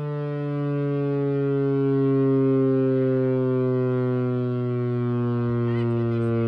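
Chrysler air raid siren (Chrysler-Bell Victory siren) sounding its attack signal: one loud, sustained howl that falls slowly in pitch.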